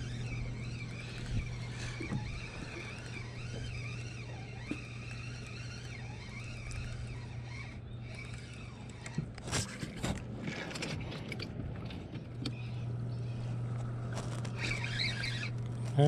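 Spinning reel being cranked as a hooked trout is played and reeled in, over a steady low hum. A cluster of sharp clicks and knocks comes about nine to eleven seconds in.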